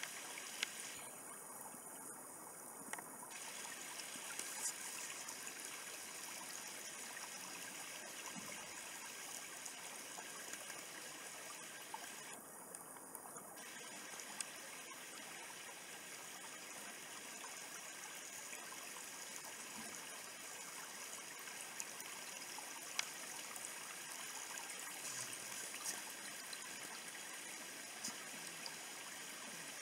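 Shallow woodland brook trickling over mossy stones: a steady, faint rush of running water, with a few small ticks.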